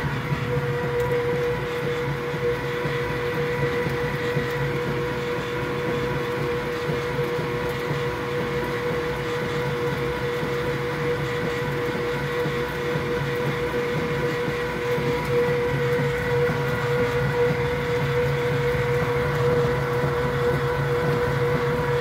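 Kenmore top-loading washing machine running with a steady hum and a constant whining tone over a low rumble. It is the abnormal noise that the owner blames on the 15-year-old machine being worn out.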